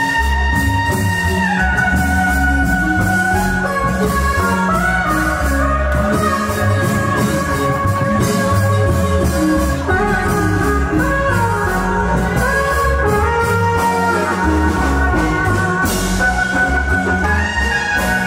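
Guatemalan marimba band playing live dance music: marimba with a deep bass line and regular percussion strokes, and a melody of held notes moving step by step above it.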